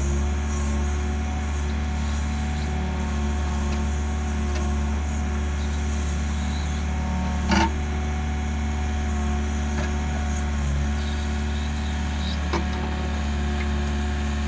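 Doosan DX55 mini excavator's Yanmar 4TNV diesel engine running steadily, with one sharp knock about halfway through and a fainter one near the end.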